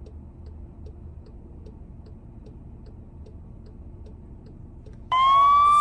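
Faint, even ticking, about two and a half ticks a second, over a low rumble; about five seconds in, a siren cuts in suddenly and loudly on a steady high tone.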